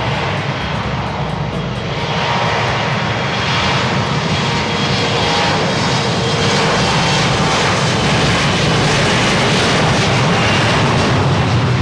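Embraer E-Jet regional jet's General Electric CF34 turbofans running with a loud, dense roar that swells over the first few seconds and then holds steady.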